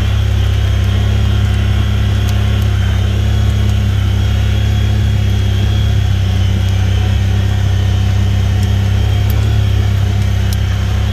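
A vehicle's engine droning steadily while driving, with no revving, and a few faint clicks over it.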